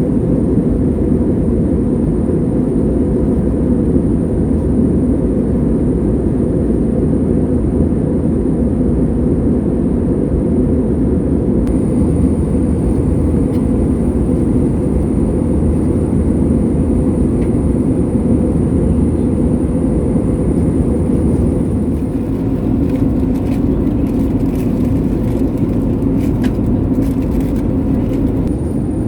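Steady cabin noise of an Airbus A320neo in flight: an even, deep rush of airflow and engine noise from its CFM LEAP-1A engines, with a thin high whine running above it.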